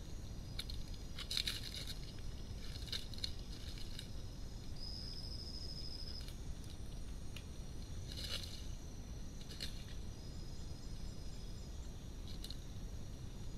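Red muntjac rustling and crunching dry leaf litter as it feeds and steps: a handful of short crunches, loudest about a second and a half and eight seconds in. Under it is a steady low rumble with thin high insect tones, and a high trilled call lasts about a second and a half around five seconds in.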